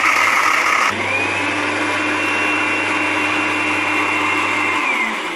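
Electric grinder motor running at full speed, grinding hard sun-dried lemon peel into powder. Its sound shifts about a second in, and near the end it switches off and winds down.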